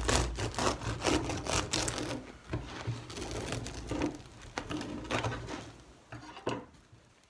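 Bread knife sawing back and forth through the crisp, crunchy crust of a round loaf and down onto a wooden board, a run of scratchy cutting strokes that tapers off about six and a half seconds in.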